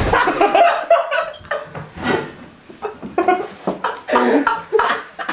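Several people laughing in short bursts, with a little talk mixed in.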